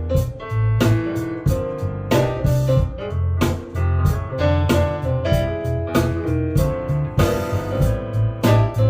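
Instrumental music with piano over a heavy bass line and drum beats, played back over hi-fi loudspeakers.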